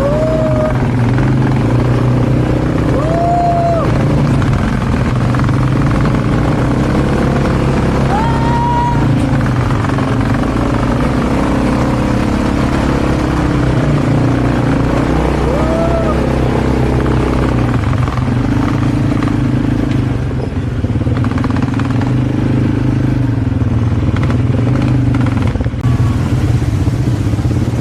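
Small vehicle engine running steadily under way, a continuous drone with a few brief higher rising-and-falling sounds over it.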